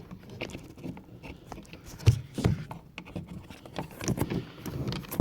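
Irregular small clicks, taps and scrapes of hands fumbling at the rear door's interior handle mechanism, fitting its rod clip into a socket, with a louder knock about two seconds in.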